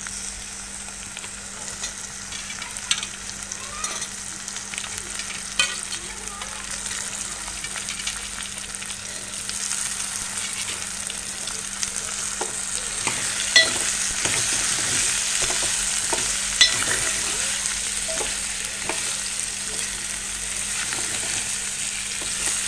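Chopped okra and green chillies sizzling as they fry in oil in a metal pan, stirred with a steel spoon that scrapes and clicks against the pan now and then. The sizzle grows louder over the first ten seconds or so, then holds steady.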